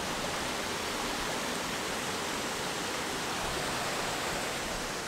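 Waterfall and rocky stream rushing: a steady, even noise of falling and running water.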